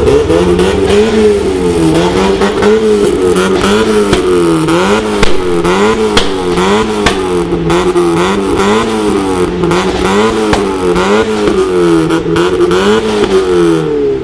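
A modified car's engine revved over and over in a fast, even up-and-down rhythm, with sharp cracks through it.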